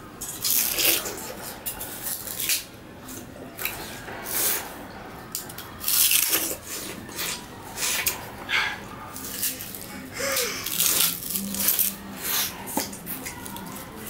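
Sugar cane being chewed by two people: repeated crisp crunching bites on the fibrous stalk, coming in short bursts at an irregular pace.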